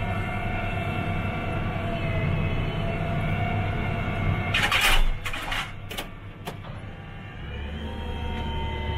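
New Holland TG215 tractor engine running, heard from inside the cab while backing up to a forage wagon's hitch. A cluster of clunks and clicks comes about halfway through, and the engine grows louder and deeper near the end.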